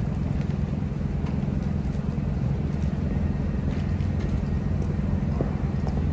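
Parked food truck's generator running with a steady low hum. A few faint footstep taps come near the end.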